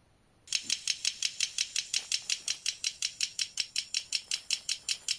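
A manakin sound: a fast, even run of short, high-pitched pulses, about six a second, that starts about half a second in and keeps the same pace throughout.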